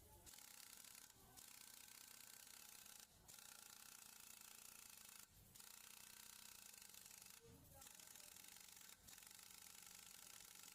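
Near silence: a faint steady hiss that cuts out briefly about every two seconds.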